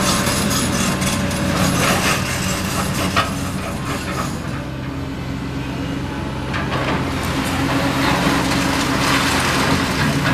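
Heavy diesel engine of a demolition excavator running steadily while the machine tears into a building. Sharp cracks and knocks of breaking debris come in the first few seconds, and a longer rush of crumbling, falling rubble comes from about seven seconds in.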